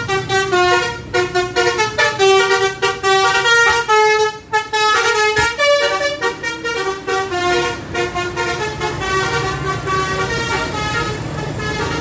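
Bus telolet horn, a Basuri multi-tone air horn, playing a quick tune of stepped notes one after another. The tune thins out after about nine seconds, leaving a low rumble.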